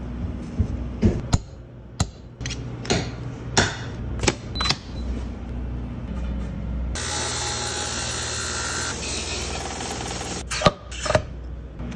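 Sharp clicks and knocks of golf club parts being handled, then a belt sander runs for about three and a half seconds with a Fujikura graphite shaft's end pressed against the belt, stopping suddenly, followed by a couple more knocks.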